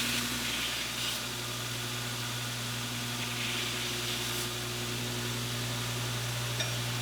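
A machine motor running steadily, a low even hum with a hiss over it.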